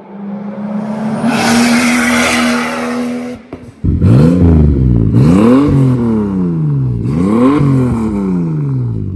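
Turbocharged Toyota Supra MK4 inline-six running at a steady raised engine speed with a hissing rush over it. After a brief break a little over three seconds in, it is revved three times, the exhaust note climbing and falling with each blip.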